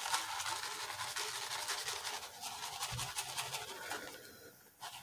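Black plastic gold pan being dipped and swirled in a tub of water: water swishing, and wet sand and heavy material scraping and ticking against the pan. It eases off briefly near the end, then starts again.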